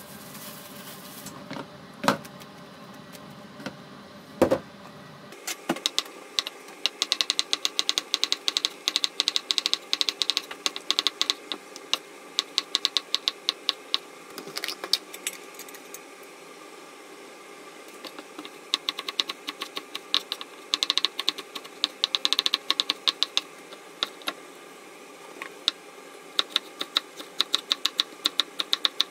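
Kitchen knife slicing a cucumber and then a red pepper on a wooden cutting board: quick runs of sharp taps, several a second, with short pauses between runs. Two single knocks come in the first few seconds, before the slicing starts.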